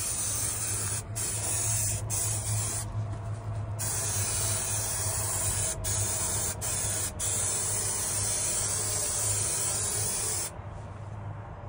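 Aerosol spray adhesive hissing from its can in long sprays, broken by a handful of short pauses; the spraying stops near the end.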